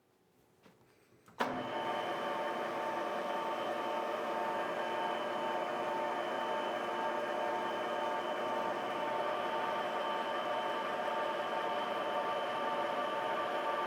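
Metal lathe running steadily with a whine of many constant tones from its gearing and motor. It starts with a click about a second and a half in, after a short near-silent gap.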